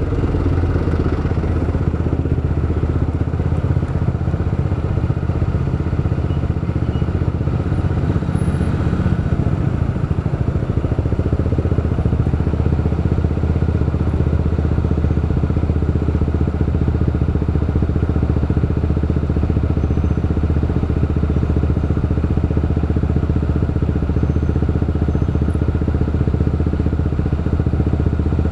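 Motorcycle engine running steadily at low, even revs, heard from on board the bike.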